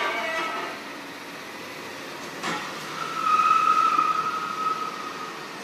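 A tow truck's flatbed loading gear. There is a single knock, then a steady high-pitched squeal that lasts a little over two seconds.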